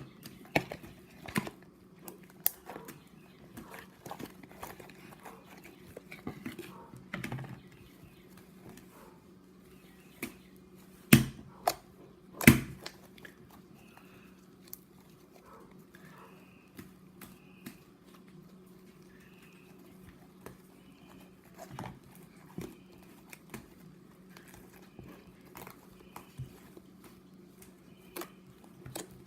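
Slime being squished and stretched by hand: scattered sticky clicks and wet pops, with two louder snaps close together near the middle.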